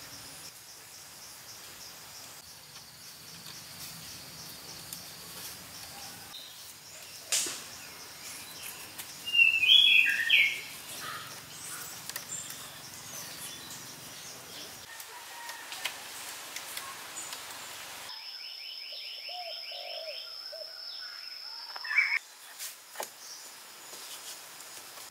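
Outdoor ambience with birds chirping: scattered short, high chirps, the loudest cluster about nine to ten seconds in, and a sharp click a little before it.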